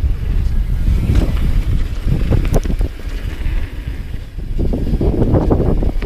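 Wind rushing over an action camera's microphone as a downhill mountain bike rolls fast down a dirt trail, with tyres on dirt and the bike rattling over bumps. The tyre noise grows louder about five seconds in as the bike carves into a dirt berm.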